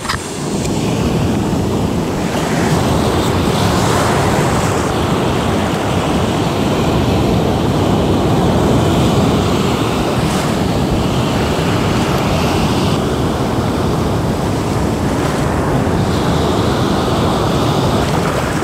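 Ocean surf breaking and washing up a sand beach, with wind buffeting the microphone.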